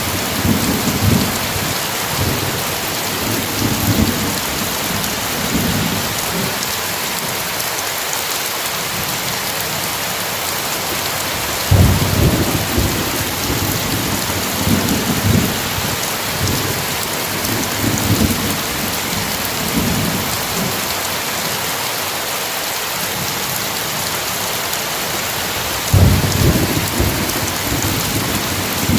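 Steady heavy rain falling, with low thunder rumbling on and off beneath it; two stronger claps of thunder break in sharply, about twelve seconds in and near the end.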